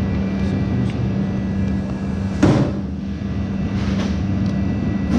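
Steady machine hum of a pizza shop's kitchen, with a single sharp knock about halfway through and a softer one about a second and a half later.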